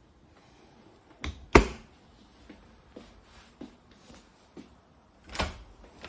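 Knocks and clicks of hard objects being handled in a small room: two sharp knocks about a second and a half in, the second the loudest, a few light clicks after, and another knock near the end.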